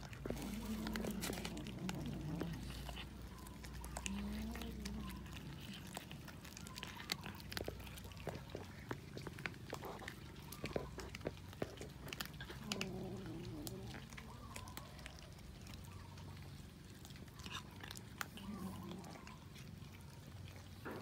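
Cats chewing raw fish: irregular wet clicks and smacks of biting and chewing. A few low wavering sounds come in between.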